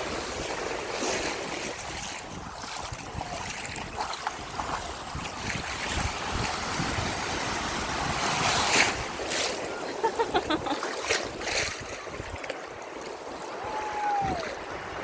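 Ocean surf washing and splashing around, with wind buffeting the microphone; the water surges loudest just before the middle.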